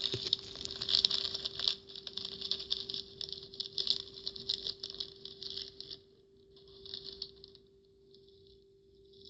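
Slime being squished and worked by hand, giving dense, rapid crackling and popping clicks that thin out and grow fainter about six seconds in. A faint steady hum runs underneath.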